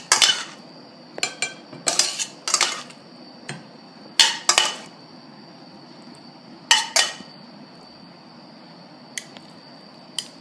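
A metal spoon scraping and clinking against a stainless steel pan as ratatouille is spooned out. The clinks come in short clusters over the first seven seconds or so, then it goes quiet apart from a couple of faint ticks.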